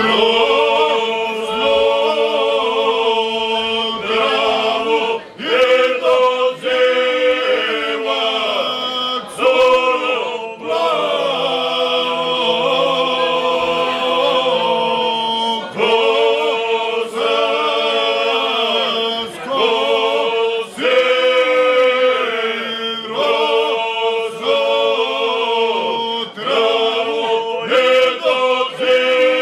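Men's group singing a Krajina folk song unaccompanied, one lead voice on a microphone with the others joining in chorus. The singing goes in long held phrases with short breaks between them.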